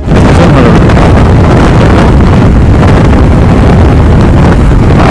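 Loud, steady wind rush on the microphone of a motorcycle moving at speed, with the bike's engine and road noise underneath.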